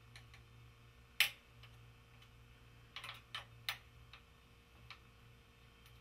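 Small metallic clicks of an Allen key working the front derailleur's cable anchor bolt as the shift cable is loosened: one sharp click about a second in, three quick clicks around three seconds in, and a few faint ticks.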